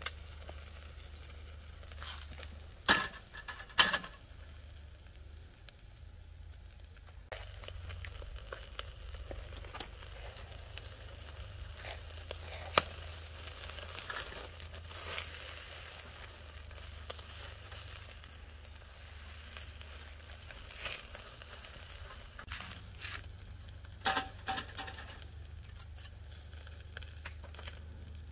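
Pork belly sizzling on a wire grill basket over a coal-briquette (yeontan) fire. Sharp clicks from the metal grill basket and tongs come a couple of times early on, once midway, and in a short cluster near the end.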